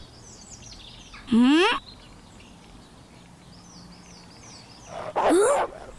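Background birdsong, faint small chirps, broken twice by a short loud cry that rises in pitch, once just over a second in and again near the end.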